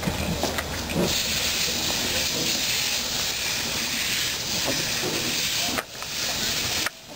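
Narrow-gauge steam locomotive moving slowly, with a steady loud hiss of steam venting from its open cylinder drain cocks beside the wheels. The sound drops out briefly twice near the end.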